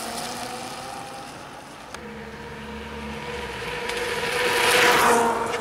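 Bezior S1 electric scooter's 1000-watt motor whining steadily over tyre noise on asphalt. It fades as the scooter rides away, then grows louder as it comes back and passes close about five seconds in.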